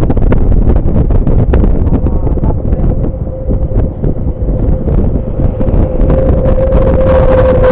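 ALS intercity bus fitted with a 'legend Bogor' exhaust, running with a heavy low rumble. A steady whine comes in a few seconds in, grows stronger near the end and dips slightly in pitch.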